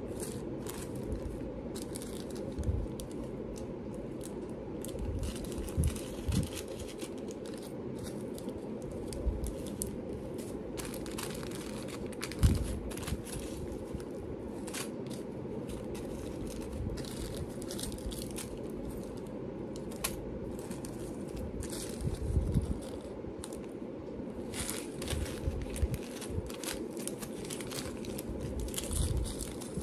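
Small plastic bags of jewelry findings crinkling and rustling as they are handled and sorted, with scattered light clicks and a few low knocks, over a steady low hum.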